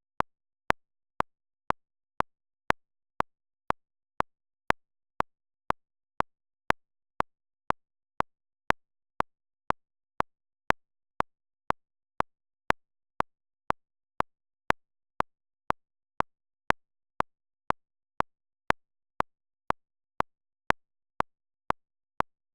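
Steady ticking sound effect: short sharp clicks, evenly spaced at two a second, with silence between them.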